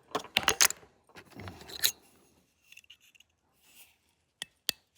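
Small metal tools clinking and rattling against each other, as when someone sorts through screwdriver bits. There is a cluster of quick clicks in the first two seconds, then two sharp single clicks near the end.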